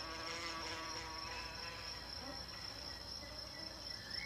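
A wasp's wings buzzing close by, strongest in the first second or so, over a steady high-pitched insect trill. A brief rising whistle comes near the end.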